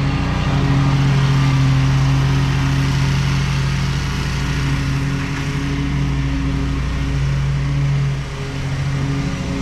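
Lawn mower engine running steadily under load, with a brief dip in level near the end.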